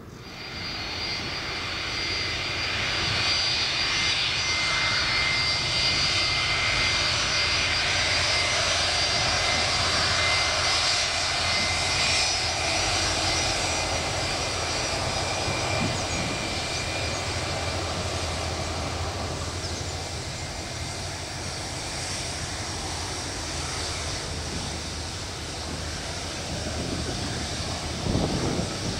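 Boeing 757 jet engines running as the airliner taxis past close by: a loud steady whine with high whistling tones over a low rumble, coming in suddenly at the start and easing a little later on. A rougher low rumble swells near the end as the engine passes.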